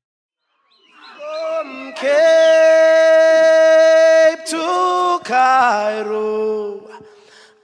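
Near silence for about the first second, then a group of people singing together, holding long notes and moving to new notes a few times.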